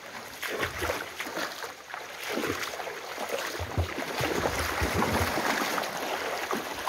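Steady rush of a flood-swollen river's water that grows louder over the first few seconds, with irregular scuffs and knocks close by.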